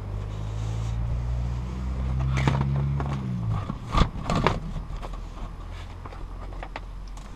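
A motor vehicle driving past: a low engine hum grows louder and then drops in pitch as it passes, fading by about three and a half seconds in. A few sharp knocks and scrapes sound in the middle.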